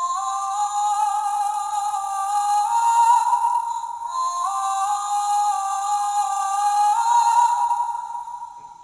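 Light-up seashell voice-stealing necklace toy playing Ariel's wordless singing, a female voice holding notes that step up and down in a simple melody, fading out near the end.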